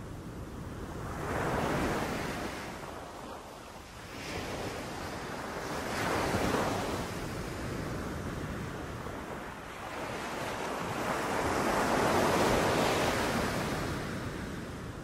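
Sea waves breaking and washing up a beach, swelling and fading in three surges about four to six seconds apart.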